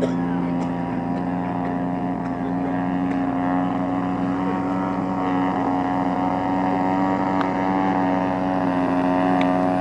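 DLE 55 single-cylinder two-stroke petrol engine of a large radio-controlled Tiger Moth biplane running at a steady throttle in flight, getting a little louder near the end as the plane comes closer.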